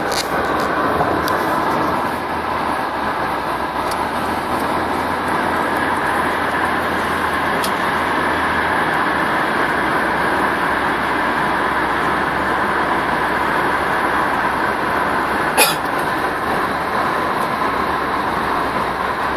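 Steady road and wind noise heard inside a moving car's cabin, with one short sharp click about three-quarters of the way through.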